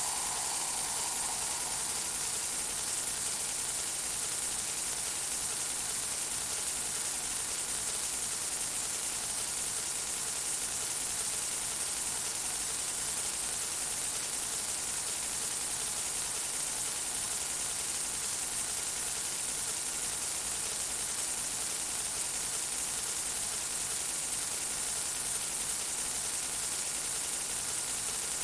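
Home-made sound effect of fingertips tapping on a hard surface, sped up so far and looped so tightly that the taps blur into a steady static-like hiss, softened with heavy reverb. The hiss is brightest in the high treble and holds an even level throughout.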